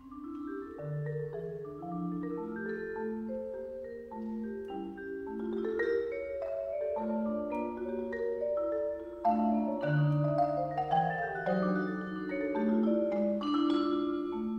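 Marimba and vibraphone duo playing a toccata: busy mallet notes on the marimba's wooden bars in the low and middle range, with ringing vibraphone tones above. The music begins abruptly and grows louder about nine seconds in, with a sharp accent.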